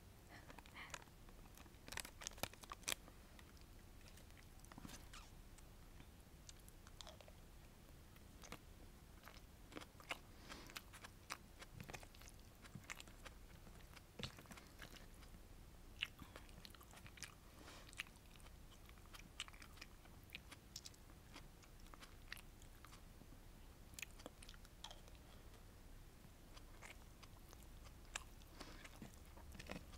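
Close-miked chewing and biting of sweet and sour fish with rice, with many sharp, crisp clicks and crunches at irregular intervals.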